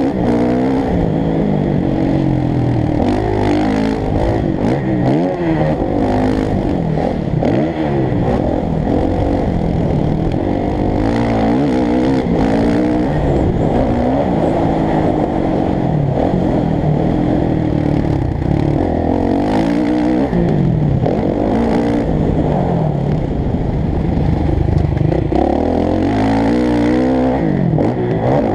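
Motocross bike engine revving hard and backing off over and over as the bike is ridden around a dirt track, its pitch climbing and falling every second or two.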